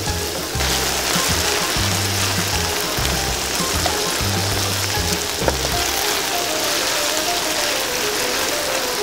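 Quail pieces sizzling as they deep-fry in hot oil, a dense steady hiss that grows louder about half a second in. Background music plays under it; its bass drops out about halfway through while a thin falling melody carries on.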